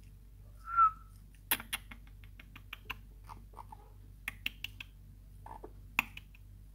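A pet parrot gives one short, high whistled chirp, then a string of sharp clicks and brief soft squeaks, with a last loud click near the end.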